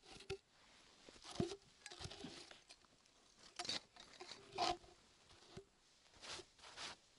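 Irregular crunching and rustling, with the loudest crunches about a second and a half in and just past the middle, a few of them carrying a brief squeak.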